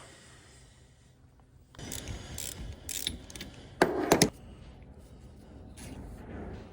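Metal clanks, clicks and rattling as tools and the parts of a 7.3L Powerstroke turbocharger are handled during its teardown. The noise starts about two seconds in, with a louder cluster of clanks about four seconds in.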